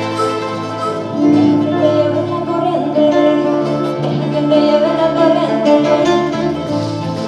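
Live Latin American folk music: a small many-stringed guitar-like instrument plucked and strummed, with a woman singing over it.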